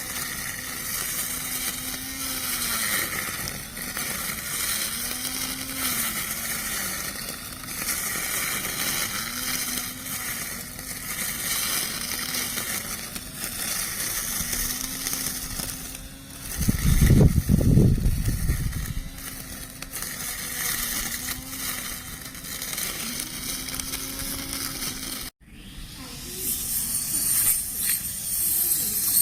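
Small electric lawn mower motor running with a steady whine, its pitch dipping briefly about every two seconds as it takes load. A loud low rumble lasts about two seconds around the middle, and the sound cuts off abruptly near the end, giving way to a hissier sound.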